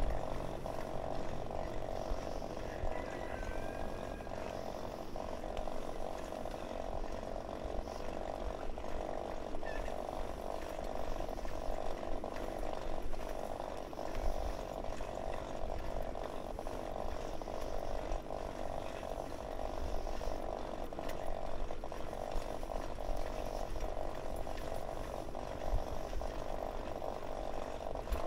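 Steady rattling buzz from a bicycle being ridden along a paved path, unbroken as it rolls on, with low wind rumble on the microphone.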